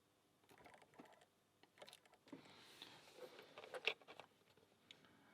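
Faint metallic clicks and scraping of a lock pick and tension tool working the pins of a pin-tumbler lock, with one sharper click a little before 4 seconds in.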